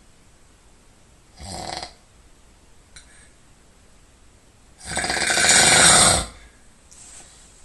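A sleeping person snoring: a shorter, softer snore about one and a half seconds in, then a loud, fluttering snore lasting about a second and a half near the end.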